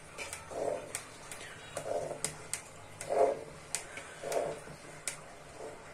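Wooden spatula stirring thick lentil dal in a non-stick pan: a rhythmic squelch with each stroke, about one every second and a quarter, with light sharp clicks of the spatula against the pan between strokes.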